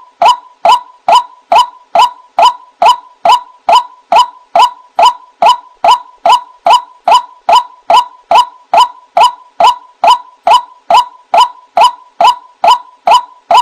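White-breasted waterhen (ruak-ruak) lure call: short 'wak' notes repeated evenly, about two and a half a second.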